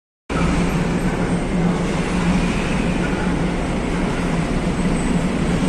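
Steady engine rumble with a constant low drone, the din of engines running on a ferry's car deck. It starts abruptly just after the start.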